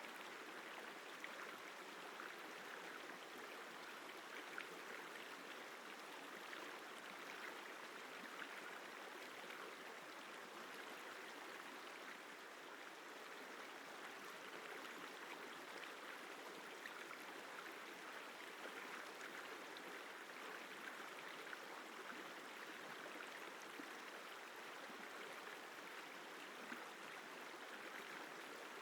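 The Isar River flowing: a steady, even rush of water, fairly faint.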